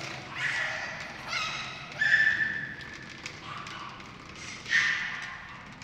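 A toddler's short, high-pitched squeals, about five in a row, the loudest about two seconds in, over the light thud of small running footsteps.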